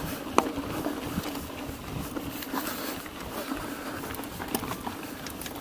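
Mountain bike rolling over a rough dirt track: a steady low rumble and hum with scattered clicks and rattles from the bike, one sharp click about half a second in.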